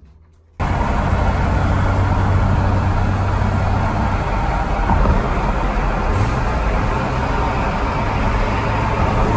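Steady road and engine noise heard from inside a moving car: a loud, even rumble with a low hum. It starts abruptly about half a second in.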